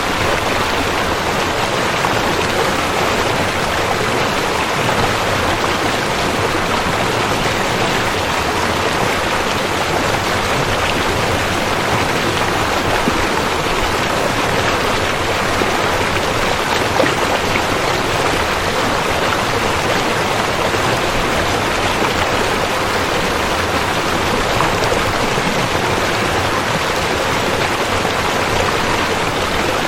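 River water flowing, a steady, even rush with no changes.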